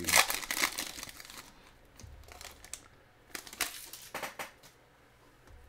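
Foil wrapper of a football trading-card pack crinkling as it is torn open and handled, in bursts in the first second and again a few seconds in.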